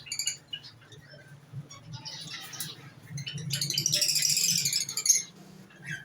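Small cage birds in an aviary chirping, with scattered short calls, then a loud stretch of rapid, dense chattering from about three to five seconds in.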